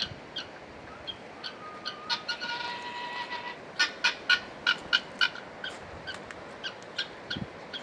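Fowl calling with short, sharp notes repeated over and over, which come in a quicker, louder run about four seconds in. A few brief steady whistling tones sound a little before that run.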